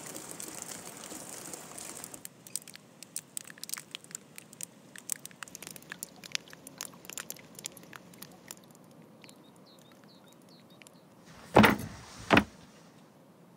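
Meltwater dripping from thawing roof eaves, a quick irregular patter of sharp drips for several seconds. Near the end, two heavy thuds less than a second apart as a raw beef leg is put down on a wooden board.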